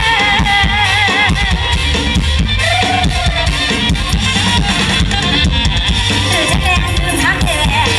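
Live Thai luk thung band music with a drum kit and a steady beat, and a woman singing over it with a wavering vibrato.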